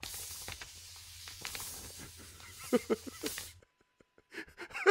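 Felt-tip pen tip scratching on paper as the sheet is slid around beneath it on a wooden table, drawing the letter A. It is a steady scratchy hiss with faint clicks and a few brief squeaky scrapes, and it stops about three and a half seconds in. A few light taps follow near the end.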